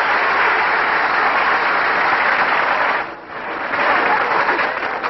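Large crowd applauding, a dense steady clatter of many hands that dips briefly about three seconds in, swells again, then tails off near the end.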